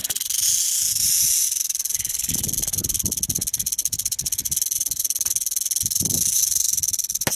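Western diamondback rattlesnake rattling its tail in a continuous, steady high buzz of very rapid clicks: the warning of a coiled, defensive snake.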